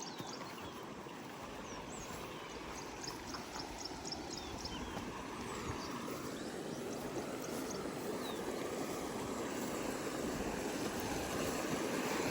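Running water of a stream, a steady rushing that grows gradually louder, with a few high bird chirps in the first few seconds.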